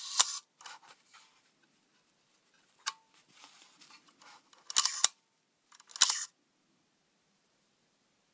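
Mechanical clicks from the Polaroid 88-17 lens assembly's shutter as it is worked: a sharp click near the start, another about three seconds in, then two short clattering bursts of clicks around five and six seconds.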